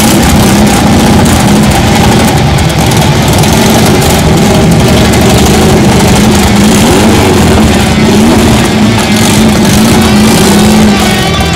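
Air-cooled VW Beetle flat-four engine running through a single-pipe stinger exhaust as the car drives slowly past, the engine note wavering slightly with light throttle.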